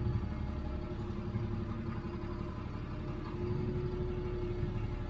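Lorry's diesel engine heard from inside the cab, running steadily at low revs as the truck creeps slowly forward.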